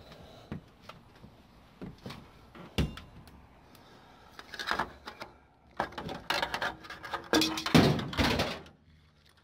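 Scattered knocks, then a run of louder clattering and scraping in the second half: someone shifting about on an aluminium stepladder in a pickup bed while handling the camera.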